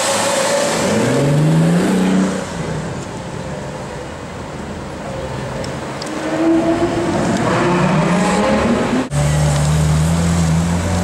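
High-performance car engine accelerating hard, its pitch rising twice, with street traffic noise around it. About nine seconds in the sound cuts abruptly to a steady low engine drone.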